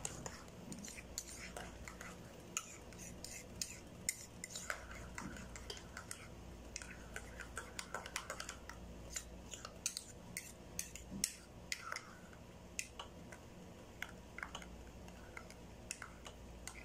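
A pot of palm-sugar syrup simmering with pandan leaves: irregular light ticks and pops from the bubbling surface, one to several a second, over a faint low hum.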